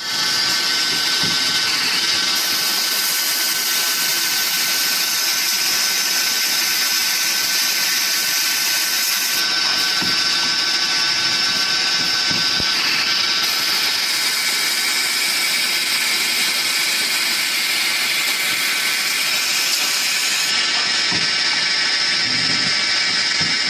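KH 40 automatic pipe-cutting machine running at speed, its spindle turning while the cutters part metal tube into short rings: a steady whine with cutting noise.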